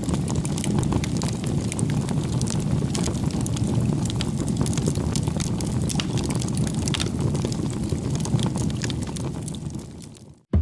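Steady low wind rumble on the microphone, with scattered small crackles over it, fading out near the end.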